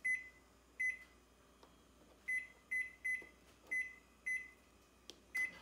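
Panasonic inverter microwave oven's keypad beeping as its buttons are pressed to set it heating: eight short, high beeps at uneven spacing.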